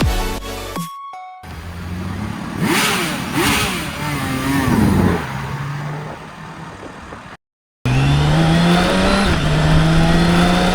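BMW K1600 inline-six engine: a few quick throttle blips, each rising and falling in pitch, then, after a brief cut, the engine pulling steadily under load with its pitch climbing slowly. The opening moment is the tail of electronic music.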